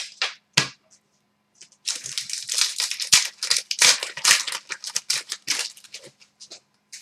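Foil wrapper of a trading-card pack being torn open and crinkled: a few sharp clicks, then about four seconds of rapid rustling.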